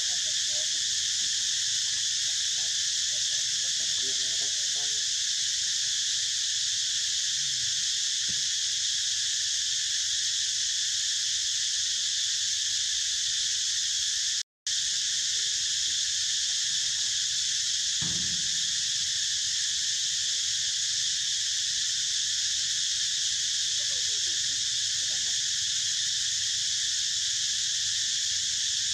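A steady, high, unbroken drone of insects, cutting out for an instant about halfway through. A single soft low thump comes about two-thirds of the way in.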